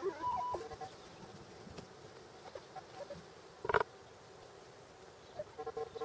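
Metal detector sounding short signal tones over freshly dug ground: a run of beeps at the start, a single louder tone about three and a half seconds in, and more beeps near the end.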